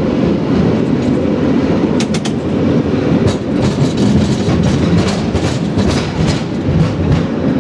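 San Francisco cable car running on its rails: a steady low rumble with frequent sharp clacks and rattles.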